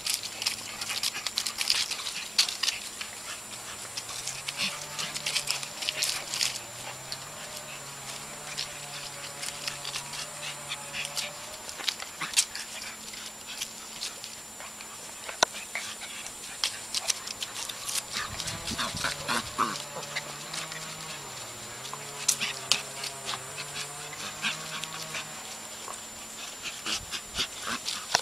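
Two-month-old Jagdterrier puppies whimpering and whining in wavering, drawn-out cries, several times, over frequent small clicks and scuffles.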